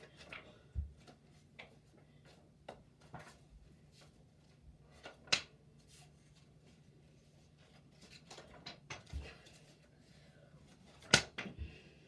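Quiet handling and flicking of small notepad-sheet cards thrown by hand: scattered light clicks and paper snaps, the sharpest about five seconds in and again near the end, with a few soft low thumps between.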